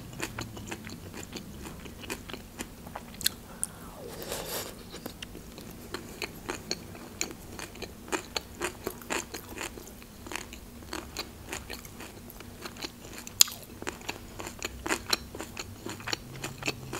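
Close-up chewing of a crunchy vegetable salad: a steady run of short, crisp crunches and wet mouth clicks, with one sharper click about two thirds of the way through.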